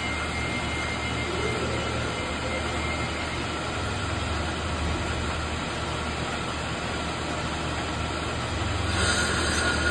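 Bench brake lathe running steadily, spinning a brake rotor with a low hum. About nine seconds in a louder hiss sets in as the cutting bit begins scratching the rotor's surface.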